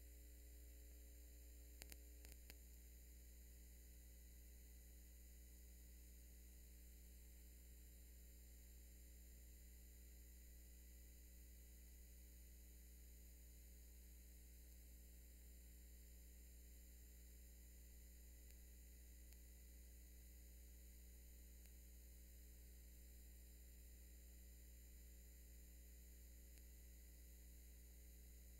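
Near silence with a steady low electrical hum. A few faint clicks about two seconds in.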